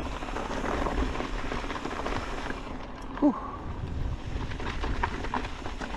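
Orbea Wild FS mountain bike rolling over a loose gravel trail: tyres crunching, with the frame and chain clattering. About three seconds in comes one brief, loud pitched sound that falls in pitch.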